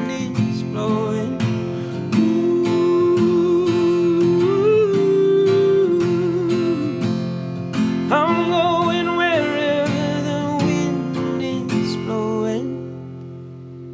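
Strummed acoustic guitar closing a folk song, with long wordless sung notes wavering over the chords. Near the end the strumming stops and the last chord rings away.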